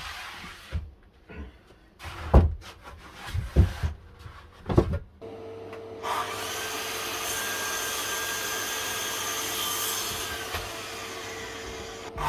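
Wood knocked and handled several times, then an electric power tool starts about five seconds in and runs steadily with a hum and a hiss.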